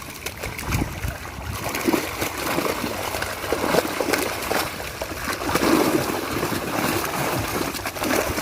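Pond water splashing and sloshing in irregular bursts: a hooked fish thrashing at the surface as it is played on rod and line.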